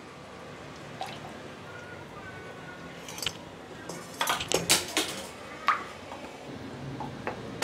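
Buttermilk poured into a pan of curry and stirred in with a wooden spatula: quiet liquid sounds with a few light knocks of the spatula and utensils against the pan, most of them between about three and six seconds in.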